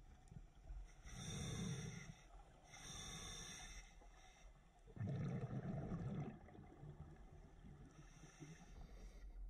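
Scuba diver breathing through a demand regulator underwater: hissing inhalations about one and three seconds in, a low burst of exhaled bubbles about five seconds in, and a fainter hiss near the end.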